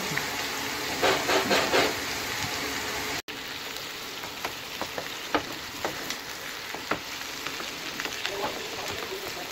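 Sliced onions sizzling as they sauté in oil in a frying pan, with a wooden spatula stirring them and now and then scraping or tapping the pan.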